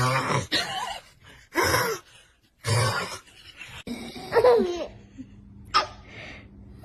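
A man snoring loudly in irregular snorts, about five over several seconds, mixed with laughter.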